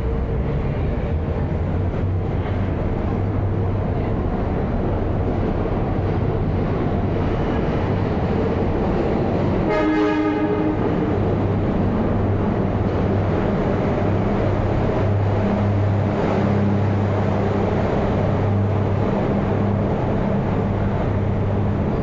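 New York City subway trains in the station: a steady, loud rumble of rail noise with a low electrical hum. About ten seconds in comes a short, horn-like pitched tone.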